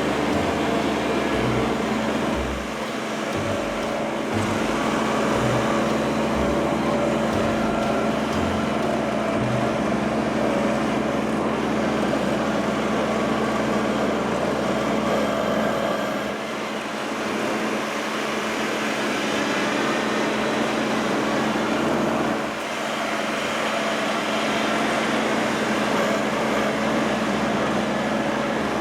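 Tractor engine running steadily, with brief dips in loudness twice in the second half.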